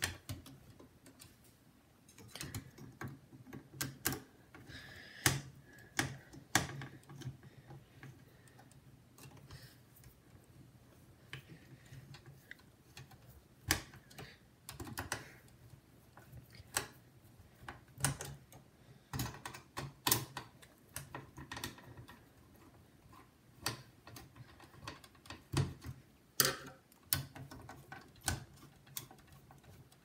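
Irregular clicks and light knocks of a screwdriver and hands working the screws of a CPU heatsink-fan assembly inside a desktop computer case.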